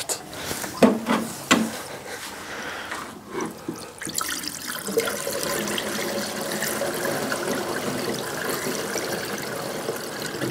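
Water running from the camper van's pump-fed faucet into the sink on the first test of the newly installed water system, which is working. A few short knocks come in the first seconds, then the flow settles into a steady, louder rush about four seconds in.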